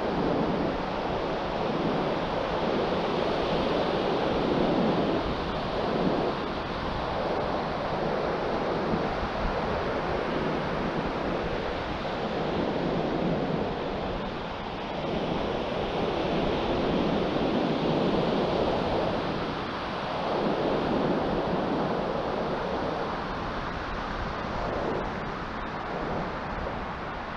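Wind blowing across the microphone mixed with the wash of surf on an open beach, a steady noise that swells and eases every few seconds.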